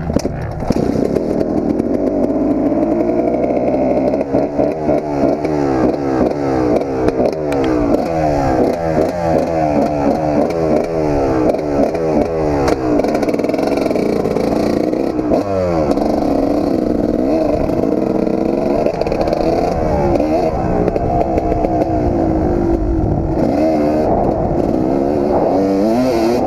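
Kawasaki KX250 two-stroke single-cylinder motocross engine being ridden hard. Its pitch climbs again and again, stepping down at each gear change or throttle lift, with a steep drop about halfway through.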